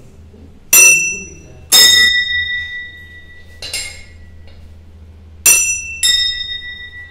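Hanging brass temple bells rung by hand, their clappers striking five times, each clang leaving a high ringing tone that slowly fades. The third strike is softer than the others.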